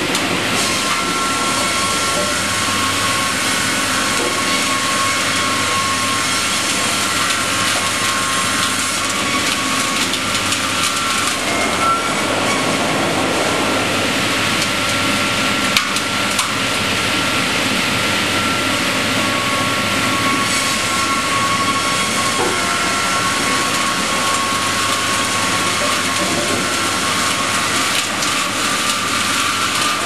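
Double-blade automated circular sawmill running: dense, steady machinery noise with a constant whine and one sharp click about sixteen seconds in.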